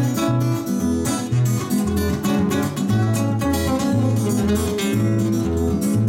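Two acoustic guitars playing together: rhythmic strummed chords over a bass line that steps from note to note about every half second.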